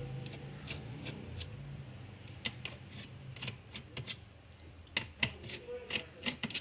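Small screwdriver clicking and tapping on a laptop's plastic case as screws are worked out, an irregular string of sharp clicks that grows denser and louder after about two and a half seconds.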